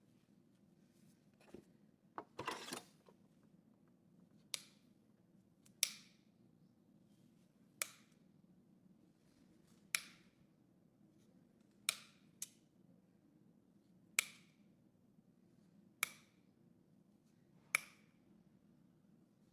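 Hoof nippers cutting through an overgrown horse hoof: a short scraping burst near the start, then about nine sharp snaps, roughly one every two seconds.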